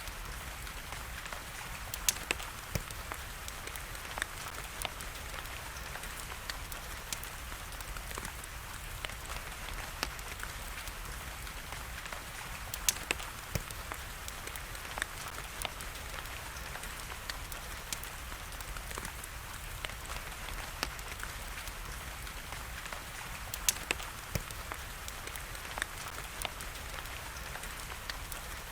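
Wood fire crackling, with irregular sharp pops and a few louder snaps spread through, over a steady hiss of rain.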